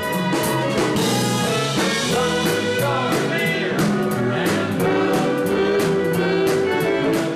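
Western swing dance band music with a steady beat.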